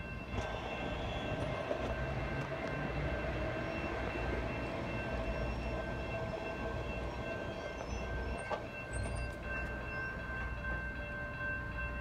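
Light-rail train running at a grade crossing: a steady low rumble with several steady high tones.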